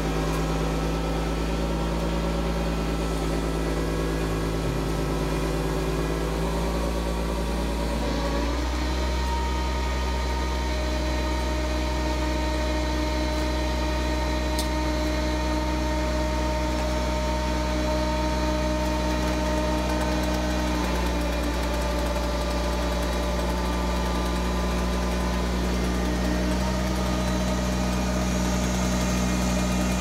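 Truck-mounted crane's engine running steadily as the crane lifts a cut tree top, its engine note shifting about eight seconds in and again about twenty-one seconds in.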